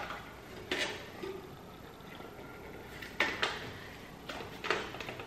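A clear plastic pouring shield clicking and knocking against a stand mixer as it is fumbled into place. There are several sharp knocks at uneven intervals, the loudest ones a little past the middle.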